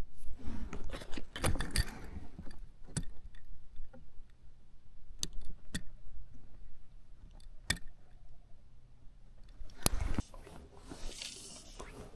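Close handling sounds of fishing tackle: rustling from hands and sleeves, with scattered sharp clicks as a fly is tied on and its barb crushed flat with small pliers.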